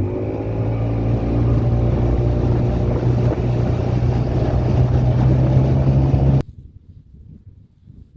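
Small boat's motor running steadily at a constant speed, then cutting off suddenly about six seconds in, leaving only a faint low rumble.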